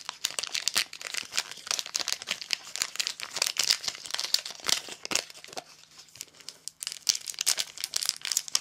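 Foil wrapper of a Pokémon trading card booster pack crinkling and crackling under the fingers as it is worked at and torn open across the top.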